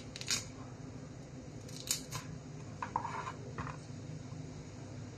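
Chef's knife cutting broccoli florets on a cutting board: a handful of short, crisp cuts and blade taps spread out, with pauses between.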